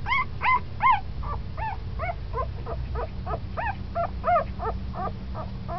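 Ten-day-old San'in Shiba puppies whimpering in a steady run of short, high squeaks, about three a second, each rising then falling in pitch; the loudest come in the first second.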